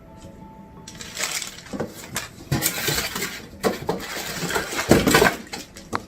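Box contents and packaging being handled: irregular rustling and light clattering of hard items, louder about a second in and loudest around five seconds in.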